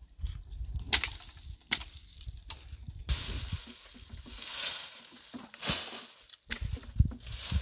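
Dry branches and brush being broken and handled: several sharp snaps about 1, 1.7, 2.5 and 7 seconds in, with stretches of rustling between them.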